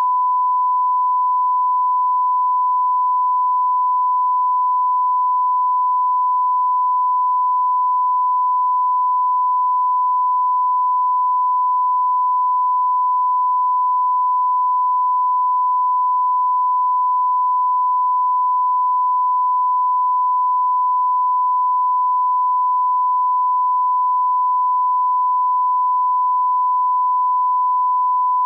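Broadcast line-up tone: a steady 1 kHz test tone of the kind played with colour bars, one unbroken pitch at constant level.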